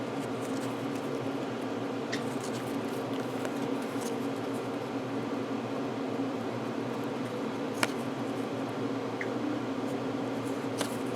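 Trading cards being handled and flipped through, a few sharp light clicks of card against card, over a steady low hum in a small room.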